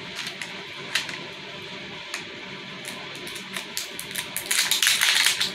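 Hands handling a plastic Mini Brands capsule ball: scattered small clicks and taps, then from about four and a half seconds in a dense crinkling as its plastic wrapper is peeled off.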